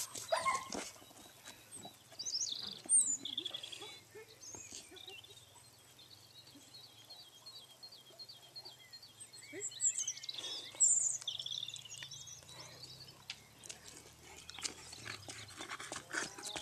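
Alaskan Malamute whining in short high calls that slide in pitch, on and off, with a run of quick repeated high notes in the middle. Light footsteps on the dirt track are heard near the end.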